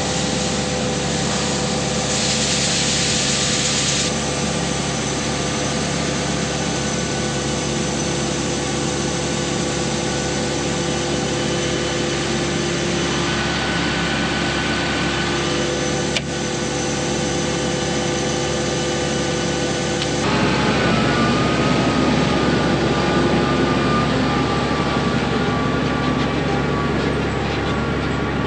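Steady drone of an engine and machinery running. The sound changes abruptly about 4, 16 and 20 seconds in.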